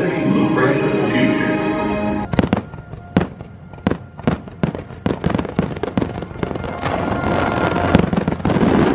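Show music cuts off about two seconds in, and aerial firework shells take over in a string of sharp bangs and crackles that come faster and denser toward the end.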